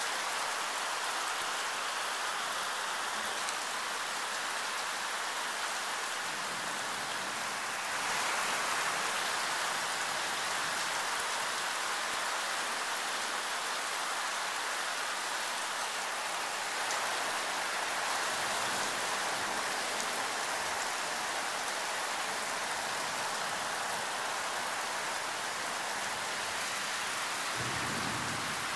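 Heavy tropical rain falling steadily: a loud, even hiss of downpour that gets a little heavier about eight seconds in. A brief low rumble comes near the end.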